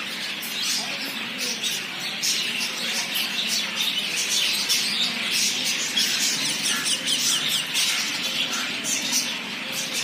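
A flock of budgerigars chattering in an aviary: many quick high chirps and squawks overlapping without a break.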